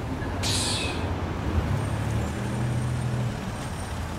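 Street traffic: motor vehicles running close by at the curb, with a short sharp hiss about half a second in.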